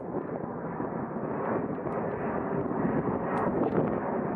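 Jet engine noise from a Boeing 737-800's CFM56-7B turbofans as it climbs out after takeoff: a steady rushing drone that grows slightly louder.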